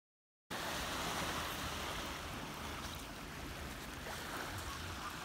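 Small waves washing onto a sandy shore, with wind rumbling on the microphone; it starts suddenly about half a second in.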